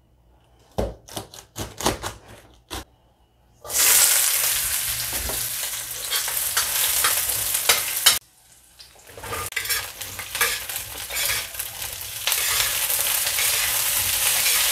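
A cleaver chopping chilies on a cutting board, about eight strikes. Then from about four seconds in, shallots and green chilies sizzle in hot oil in a stainless steel wok while a metal spatula stirs them. The sizzle breaks off for about a second near the middle and is louder near the end.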